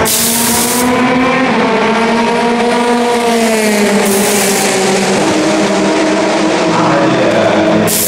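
Pneumatic wheel guns of a pit-stop tyre change firing in short hissing bursts: one at the start, one about four seconds in, one at the end. Underneath, a race car engine is heard passing, its pitch rising and then falling.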